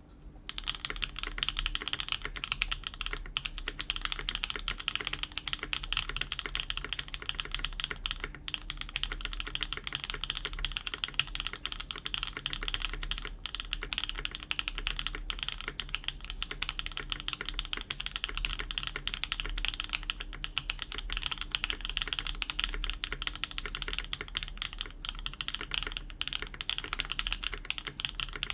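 Continuous fast typing on a KBDfans Tiger80 Lite mechanical keyboard with lubed Gateron Smoothies linear switches, PBT keycaps and an FR4 plate in a gasket mount with foam. It is a dense, unbroken stream of key clacks that starts just as the sound begins.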